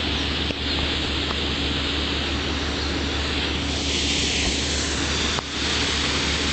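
Portable motor pump's engine running steadily at a constant speed, pumping floodwater through a layflat hose.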